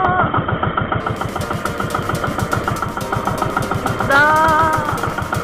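Small boat engine idling with a rapid, even putter. A short wavering tone sounds over it about four seconds in.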